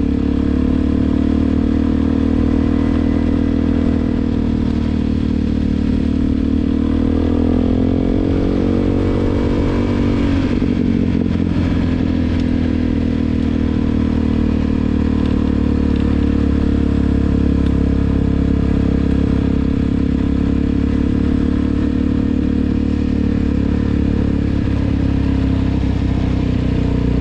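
Suzuki DR-Z400's single-cylinder four-stroke engine running steadily while riding. Its pitch climbs a few seconds in, drops sharply about ten seconds in, then holds steady again.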